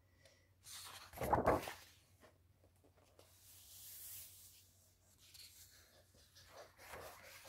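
Pages of a thick paper coloring book being turned by hand: a paper swish with a soft thump about a second in, then a hand sliding over the paper to flatten the new spread, with softer rustles near the end.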